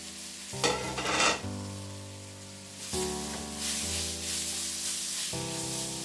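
Julienned bell peppers and carrots sizzling in hot oil in a non-stick wok as they are tipped in and stirred with a spatula, with a loud burst of sizzling about a second in. Background music with slow, steady chords plays underneath.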